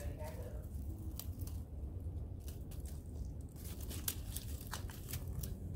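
Dry cherry tomato vines rustling as ripe tomatoes are pulled off by hand, with scattered small clicks and snaps of stems breaking.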